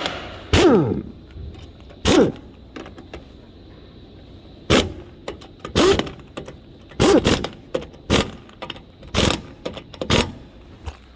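An impact wrench working the wheel nuts, in about nine short bursts, several of them ending in a quickly falling whine as the tool spins down.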